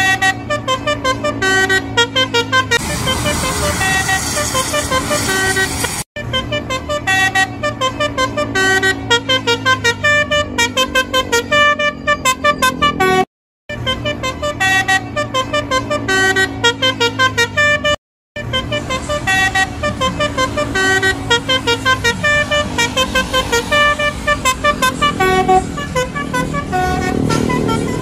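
Tour buses' basuri musical horns playing quick melodic tunes, note after note. The tunes break off briefly where the clips change. A stretch of road noise sits under the horn about three to six seconds in.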